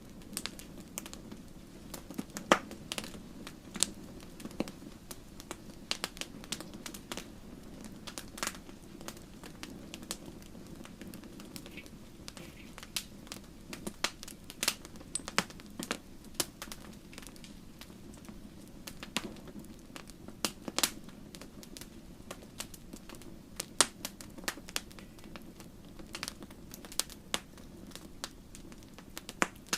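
Wood fire in a fireplace crackling: irregular sharp pops and snaps, a few much louder than the rest, over a steady low rumble of the burning.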